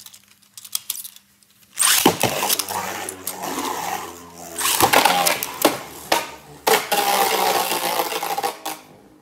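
Beyblade Burst spinning tops launched into a plastic stadium: a few light clicks, then about two seconds in a sudden loud whirring scrape as the tops spin across the plastic floor, broken by several sharp clacks as they hit each other and the walls. The spinning dies down near the end.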